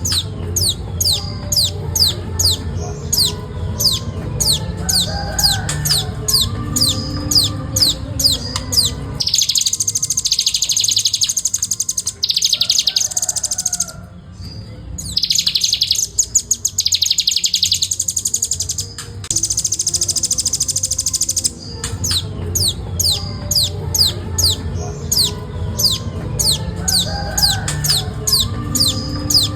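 Velvet-fronted nuthatch singing a fast, tightly spaced series of sharp high notes that drop in pitch, about three a second. In the middle it switches to several dense buzzy trills before going back to the rapid notes.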